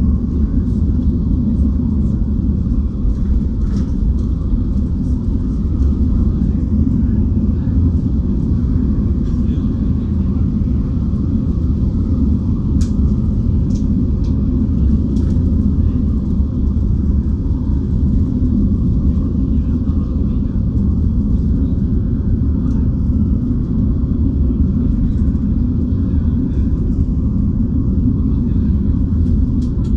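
Intercity coach bus driving: a steady low rumble of engine and road noise, with a few faint clicks and rattles.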